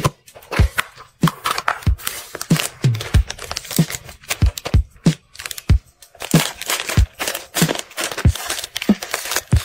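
Plastic-wrapped packs of sanitary pads crinkling as they are handled and set into a plastic basket, with tape on a cardboard box slit by a utility knife near the start. Background music with a steady beat plays throughout.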